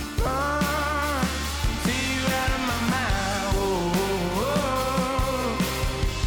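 Background music: a song with a sung, gliding melody over a steady bass line and regular drum beats.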